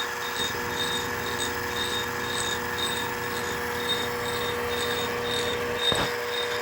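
LMS 3900 HiTorque mini mill running through a milling pass in acrylic: a steady hum with a faint high chirp repeating about twice a second, and one short knock near the end.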